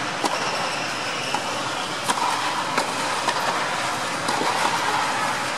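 Tennis balls being struck by rackets, a few sharp knocks about a second apart, over a steady background noise.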